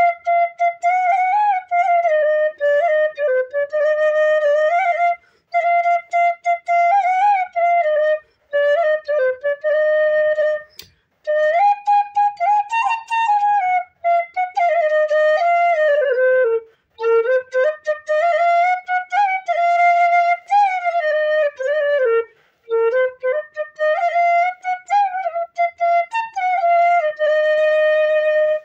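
Bamboo bansuri (side-blown flute) played solo: a single Hindi film-song melody line with slides and bends between notes, in phrases broken by short pauses for breath.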